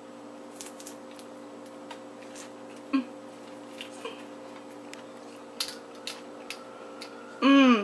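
Crisp, irregular crunches and clicks of someone biting and chewing a taco wrapped in a romaine lettuce leaf, over a steady low electrical hum. A short voiced sound comes near the end.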